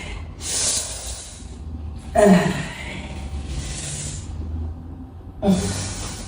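A person breathing out heavily three times: a breathy exhale just after the start, then two more, about two and five and a half seconds in, that each open with a short falling groan before trailing into breath.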